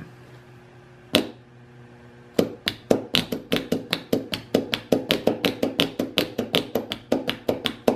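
Small-engine starter solenoid clicking as a 12-volt lead is tapped on its small terminal: one click, then a rapid run of sharp clicks, several a second. The solenoid clicks each time but its internal contacts are not closing, so the continuity meter stays silent: the solenoid is bad.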